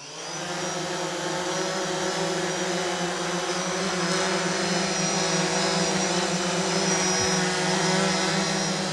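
Yuneec multirotor drone's electric motors and propellers whirring steadily as it hovers low just after takeoff: a steady hum with overtones, growing slightly louder.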